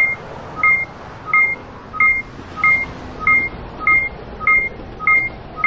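Electronic countdown beeps: about ten short, evenly spaced high beeps, each sounding two pitches together, a little under two a second, counting down the last seconds before a landing.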